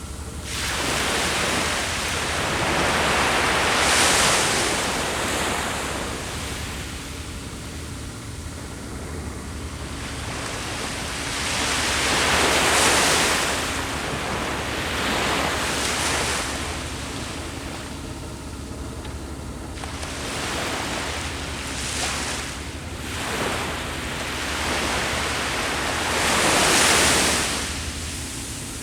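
Ocean waves breaking and washing up the shore, about five surges that swell and fall away every few seconds.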